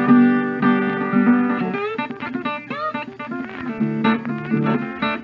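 Background music: guitar playing plucked notes with bends, over a steady bass line.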